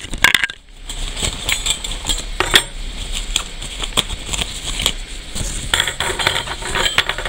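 Clear plastic packaging bag crinkling and rustling as it is handled and opened by hand, with small metal parts inside clinking.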